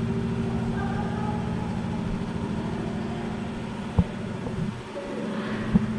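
Steady low mechanical hum, with a sharp tap about four seconds in and a few light knocks near the end.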